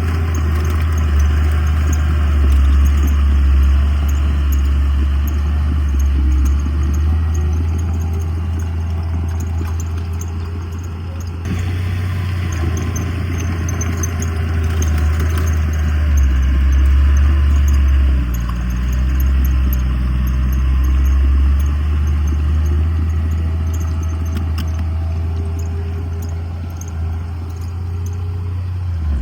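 Heavy diesel earthmoving machinery working: a deep, steady engine rumble with some clatter, changing abruptly partway through.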